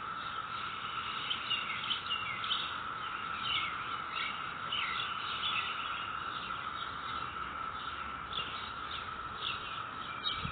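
A steady, unbroken chorus of periodical cicadas droning at one pitch, with scattered short bird chirps above it.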